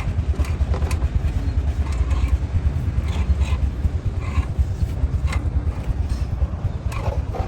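A steady low engine rumble, with a few sharp clicks or taps over it.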